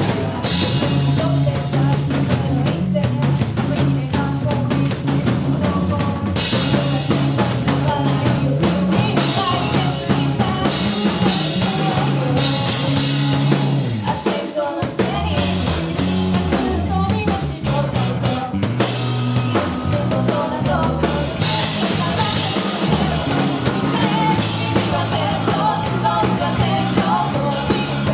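Band music with a full drum kit playing a steady beat over a bass line. The music dips briefly about halfway through.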